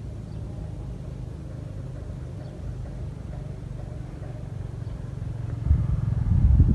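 A motor vehicle's engine running, a low rumble that grows louder near the end.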